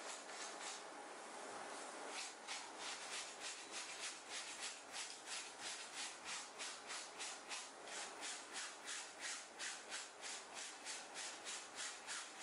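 Hand scrubbing at a stained white shirt with a cleaning tool: a soft rubbing that turns, about two seconds in, into quick regular back-and-forth scrubbing strokes, about three a second.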